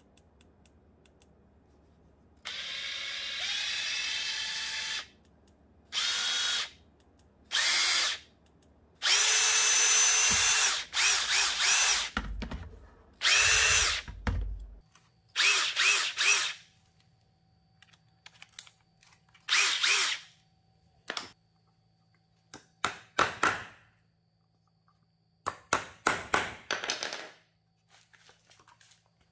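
Hitachi WH 14DBAL cordless impact driver's motor whining in about a dozen short trigger bursts, its pitch shifting with trigger pressure. It is being test-run free in the hand after restoration, powered by a rebuilt 4S 16.8 V battery pack.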